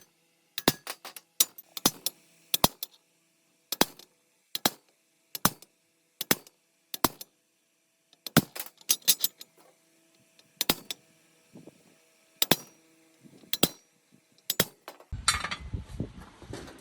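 Sharp metallic taps and knocks at an uneven pace, a few leaving a short ring. About a second before the end, a rough low rumble starts.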